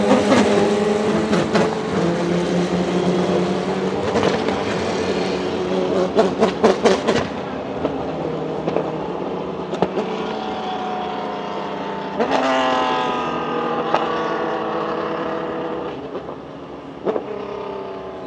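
Dallara GP3 race cars' V6 engines running at racing speed. A car passes close at the start, a quick run of sharp pops comes about six to seven seconds in, and a car accelerates with rising pitch about twelve seconds in. The sound fades near the end as the cars pull away.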